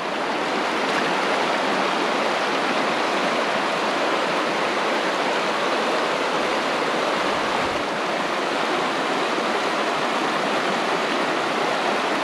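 A wide, shallow river flowing, a steady, even rush of water.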